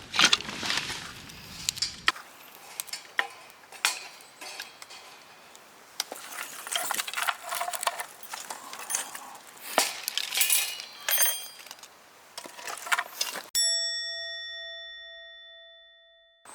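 Scattered clicks, knocks and rustling of camp gear being handled, then near the end a single clear bell-like metallic ding that rings out and fades over about three seconds.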